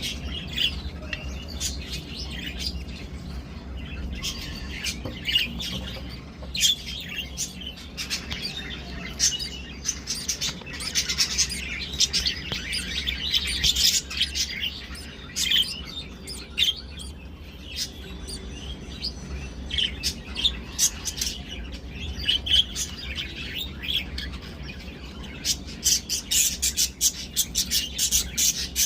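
Budgerigars chirping and chattering in quick, irregular high chirps, busiest midway and near the end, over a steady low hum.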